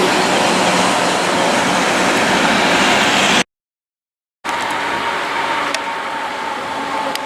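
Tram running on its rails, a loud steady rushing noise that cuts off dead about three and a half seconds in. After a second of silence, a quieter steady hum with a few faint clicks follows.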